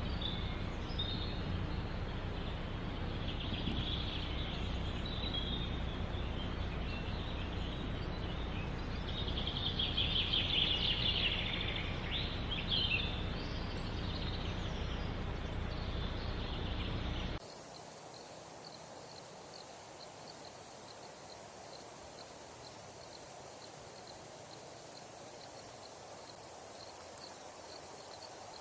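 Outdoor ambience: a steady rumble of wind with birds calling over it, busiest about ten to thirteen seconds in. About two-thirds of the way through it cuts abruptly to a quieter ambience with faint, evenly repeated high chirps.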